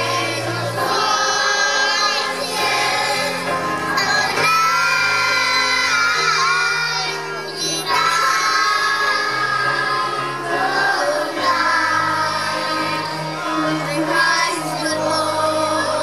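Large children's choir singing a song together, with instrumental accompaniment carrying a sustained bass line.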